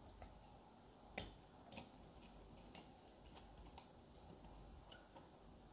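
Faint, irregular small clicks and taps as a Kingjoy KT-30 mini tripod and a phone clamp are handled and adjusted while a phone is fitted. The sharpest clicks come about a second in and about three and a half seconds in.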